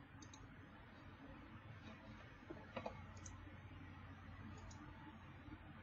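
Near silence with a handful of faint computer mouse clicks.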